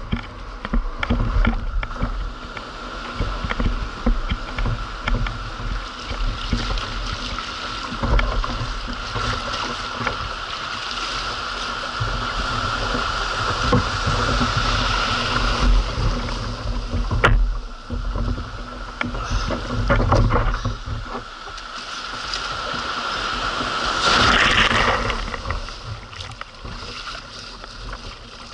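Fishing kayak being pushed out through shallow surf, with water splashing and washing around the hull and wind buffeting the microphone. Near the end, paddle strokes through small breaking waves.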